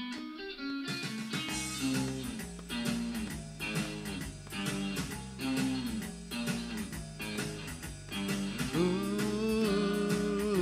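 Blues-style instrumental intro led by guitar; a bass line and steady beat come in about a second in, and long held notes start near the end.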